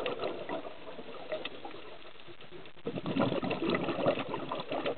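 Underwater bubbling from a scuba diver's exhaled breath through the regulator, with scattered faint clicks. It eases off for a couple of seconds, then gurgles again from about three seconds in.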